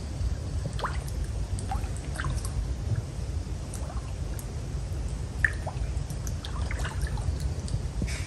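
Scattered small drips and plops on the surface of a muddy pond, over a low steady rumble.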